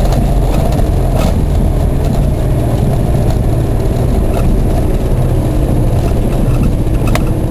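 Steady in-cabin drone of a 1995 Hyundai Accent's 1.5-litre 12-valve four-cylinder and its automatic transmission, with road and wind noise, as the car slows from about 150 to 110 km/h after a top-speed run.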